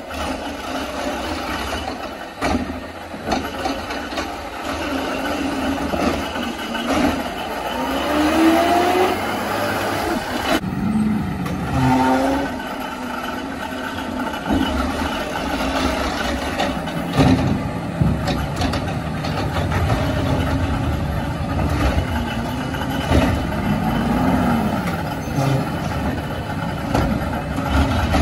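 CNG Peterbilt 520 garbage truck with a McNeilus ZR automated side-loader body, its engine running and revving up and down several times, with a few sharp clanks.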